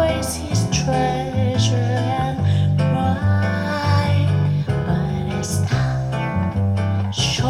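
A guitar-led song with a steady bass line, played back through B&W 707S2 bookshelf speakers and recorded in the listening room.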